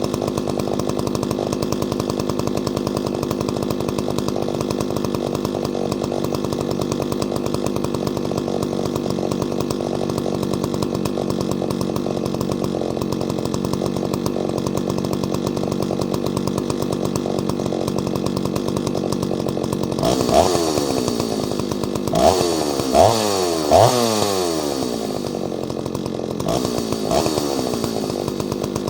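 Ported Solo 670 two-stroke chainsaw idling steadily. About two-thirds of the way through it gets about five quick blips of the throttle, each rev falling back to idle.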